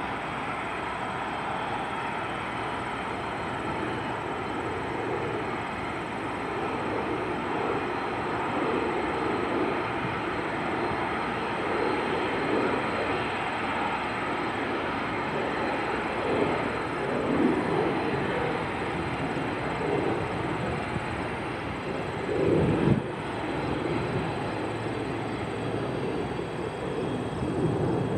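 Jet airliner engines: a steady rushing roar that slowly grows louder, with uneven low rumbling swells from about a third of the way in and one stronger swell near the end.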